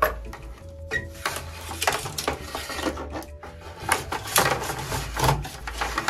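A handful of arrows rattling and clattering against each other and the PVC pipe as they are slid down into the tubes of a PVC arrow stand, with irregular clicks and scrapes.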